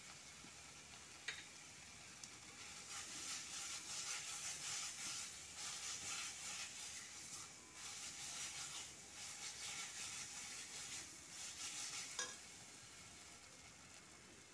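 Spiced masala sizzling as it fries in an aluminium kadhai while a steel spatula stirs and scrapes it through the pan. This is the bhuna stage of frying the masala down. The stirring is busiest through the middle stretch, with two sharp clicks, one early and one near the end.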